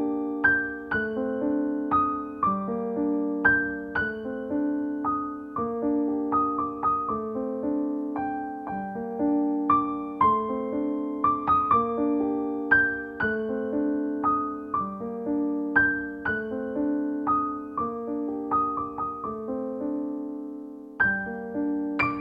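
Background music: a piano playing a repeating pattern of chords and single notes at an even pace.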